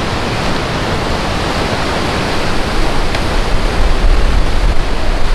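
Rough sea surging and breaking against rocks below a cliff, a steady rushing noise, with wind buffeting the microphone that grows louder about halfway through.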